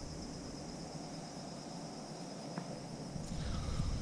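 Crickets chirring in a steady, high, even trill. Underneath is a low rumble that fades in the middle and returns near the end.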